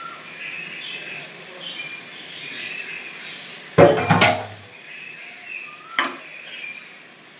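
Cookware clattering as a cooked curry is tipped out of a pan: a loud clatter of metal on the pan about four seconds in and a sharper knock about two seconds later. Faint bird chirps run underneath.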